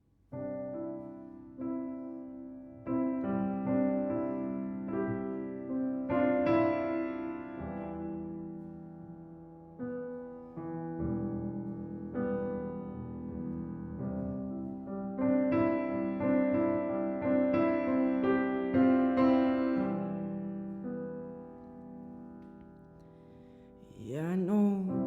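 Solo piano playing a slow, gentle introduction of sustained chords and melody notes that ring and fade. A voice begins singing near the end.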